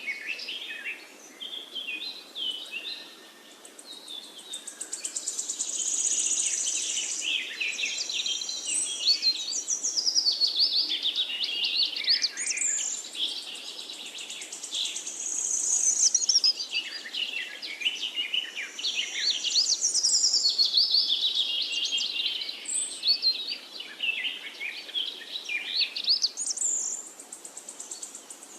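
Several songbirds singing and chirping at once, rapid high notes overlapping without a break, with a steady high trill that comes and goes.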